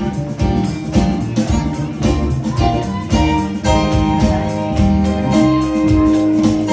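A small jazz band playing live, with keyboard, upright bass and drums; plucked-string notes are prominent.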